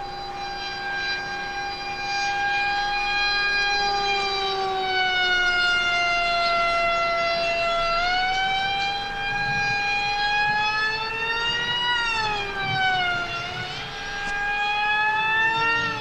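Whine of a 6S-powered electric flying wing's motor and propeller in fast flight. It is a high whine with many overtones. It slides slowly down in pitch, then rises and falls sharply twice in the second half as the plane passes and the throttle changes.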